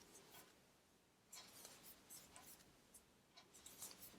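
Near silence with the faint scratchy rustle and small ticks of a crochet hook pulling cotton yarn through single crochet stitches.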